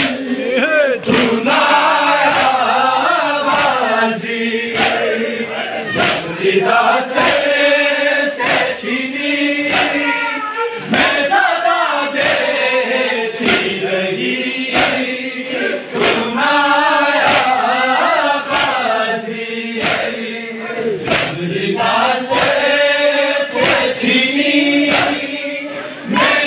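A noha, a Shia lament, chanted by a group of voices. Regular sharp beats keep time with it at about four every three seconds, the chest-beating (matam) that goes with a live noha.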